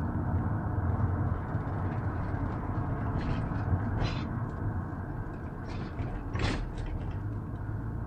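Inside the cab of a 2016 Ram Promaster City camper van driving on a paved road: a steady low rumble of engine and tyres, with a few short rattles or creaks, the clearest about six and a half seconds in.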